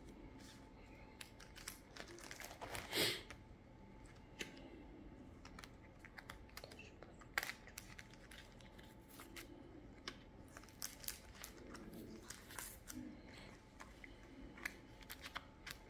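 Panini FIFA 365 trading cards being slid into the clear plastic pockets of an album's binder pages: soft plastic crinkling and rustling with small scattered clicks, a louder rustle about three seconds in and a sharp tick about seven seconds in.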